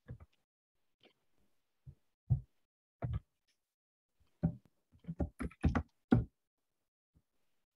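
Scattered soft knocks and taps over a video-call microphone, with silence between them: a few spaced out at first, then a quick run of about six in just over a second in the second half.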